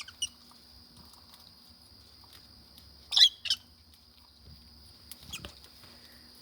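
Lovebirds calling: two sharp, high chirps about a third of a second apart a little past the middle, with fainter short chirps near the start and about a second before the end.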